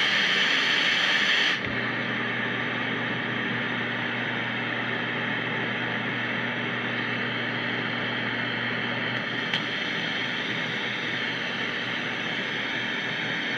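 Old radio hissing with static between stations as it is tuned. About a second and a half in, the hiss drops and dulls and a low steady hum sits under it, with one faint click partway through.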